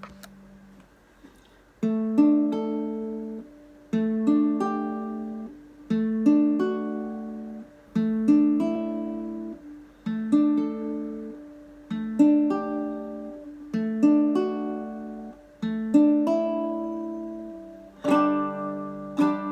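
Ortega RU5-BA baritone ukulele played solo, a picked or strummed chord pattern that starts about every two seconds and rings out between, with a brief near-quiet pause about a second in.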